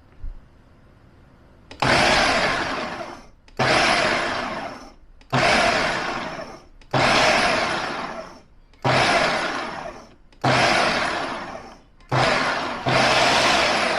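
Ninja BN801 food processor motor run in pulse mode, its chopping blade cutting up onions: about seven short bursts, each loudest at the start and tapering off, with a brief pause between them. The first pulse comes after a quiet couple of seconds with a light click.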